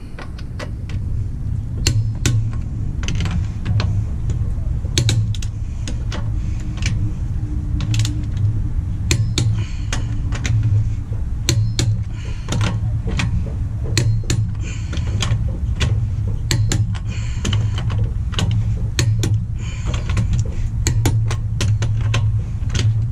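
Socket wrench ratchet clicking in short runs as the wheel's lug nuts are snugged down by hand, over a steady low hum.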